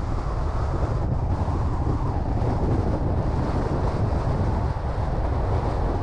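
Steady, loud wind rumble on the microphone mixed with the road noise of a car driving.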